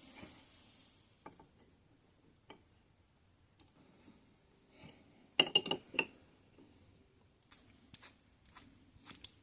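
Metal parts of a pipe vise being handled: scattered light taps and clicks, with a quick run of sharp, ringing metallic clinks about five and a half seconds in.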